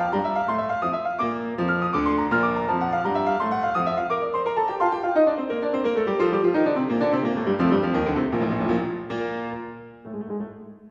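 Background solo piano music playing a flowing melody, with a long run of falling notes in the middle that fades to a few soft notes near the end.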